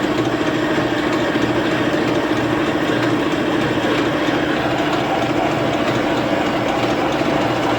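LeBlond lathe running steadily, boring out a hardened steel shaft with a carbide insert. It gives an even machine hum with a wavering tone under a steady cutting noise.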